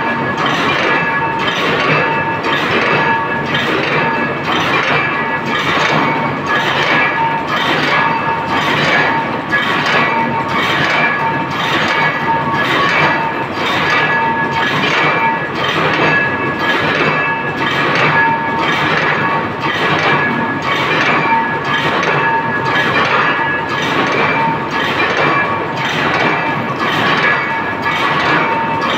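Automatic shuttleless wire mesh weaving loom running, with a regular metallic clash at about one and a half beats a second and a ringing tone from the metal after each beat.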